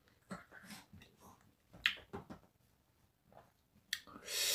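Chopsticks picking through seasoned dried squid strips in a plastic takeout container: a few faint clicks, one sharper click about two seconds in, then a short breathy hiss near the end.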